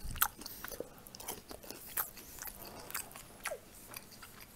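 A person chewing crisp pan-fried pelmeni dumplings with the mouth open, making irregular wet clicks, smacks and crunches.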